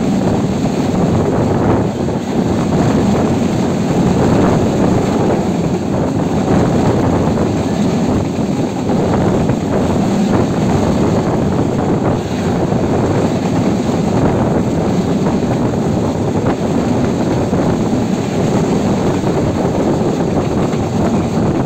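Passenger train running at speed, heard from an open coach window: a steady, loud rumble of the wheels on the track with wind rushing over the microphone.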